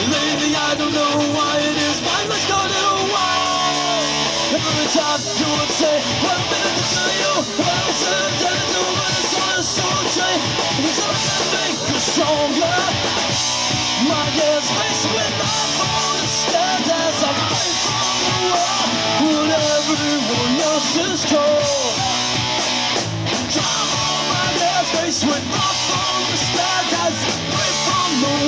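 Live rock band playing a song on electric guitars and a drum kit, loud and continuous.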